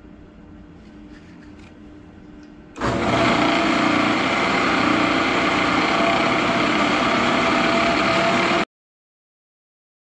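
Shopsmith lathe running with a wooden spindle being sanded: a loud steady whir and hiss of sandpaper on the turning wood. It starts abruptly about three seconds in over a faint hum and cuts off suddenly near the end.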